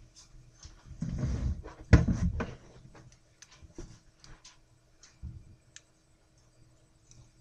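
Someone moving and settling at a desk: soft thumps and rustling about a second in, a sharp knock at about two seconds, then scattered light clicks and another soft thump about five seconds in, over a faint steady hum.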